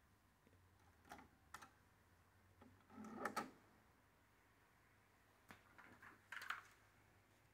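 Mechanical clicks and clunks from a JVC KD-A3 cassette deck's piano-key transport buttons and cassette door. Two light clicks come about a second in, a louder clatter around three seconds in as the cassette door is ejected open, and another cluster of clicks near the end.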